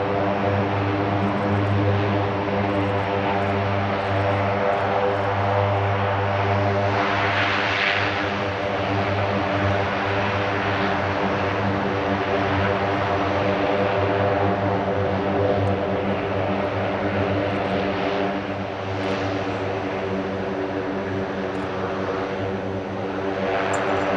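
Lockheed C-130J Super Hercules taxiing, its four turboprops running at low power: a steady propeller drone with a strong low hum and a stack of even tones above it. The rushing noise swells briefly about eight seconds in.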